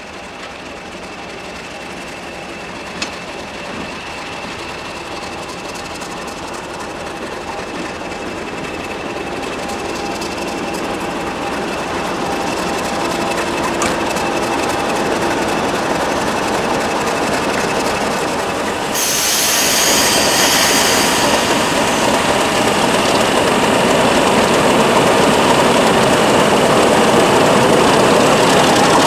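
Class 50 diesel locomotive, with its English Electric V16 engine, approaching and growing steadily louder, with a steady whine under the engine noise. About two-thirds of the way through the sound suddenly becomes fuller and brighter as the locomotive draws close.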